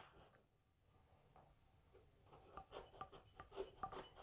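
Kitchen knife slicing through a peeled breadfruit: faint, irregular crunching clicks begin a little past halfway, after near silence.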